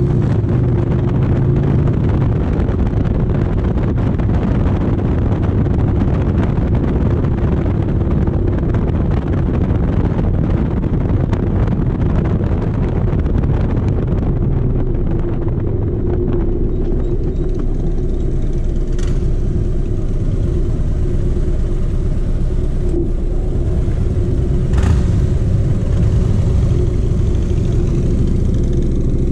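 Motorcycle engine running under way with a rush of wind and road noise; the wind noise fades after about halfway as the bike slows into stopped traffic.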